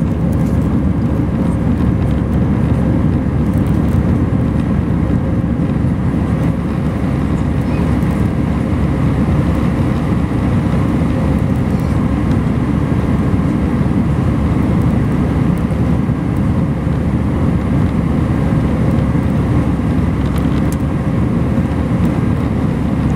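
Steady cabin noise of an Airbus A319 airliner in flight: a loud, even low rumble of airflow and the CFM56 turbofan engines, with a few faint steady tones above it.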